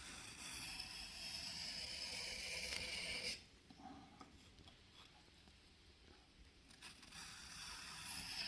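Knife blade scraping along a sharpening stone in long strokes, a faint gritty hiss. It stops a little past a third of the way in and starts again near the end.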